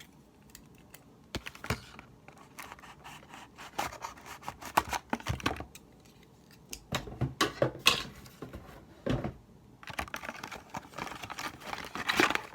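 Scissors cutting open a toy's packaging, with irregular snips, scrapes and crinkling handling noise coming in bursts.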